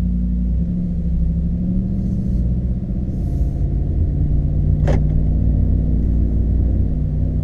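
The 5.0 L V8 of a 2014 Ford F-150 with a Flowmaster 50 Series HD muffler, heard inside the cab while driving: a steady, deep exhaust rumble. A single sharp click comes about five seconds in.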